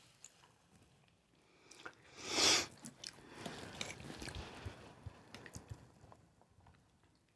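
Close-up eating sounds of a person chewing spaghetti noodles in Alfredo sauce, with scattered small clicks. About two and a half seconds in there is one short, loud hissing burst.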